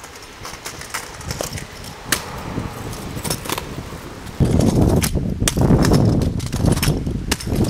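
Kick scooter's small hard wheels rolling over rough, cracked asphalt, with metallic clicks and rattles from the deck and bar. About four seconds in it turns abruptly much louder, a dense rumble with scattered clacks.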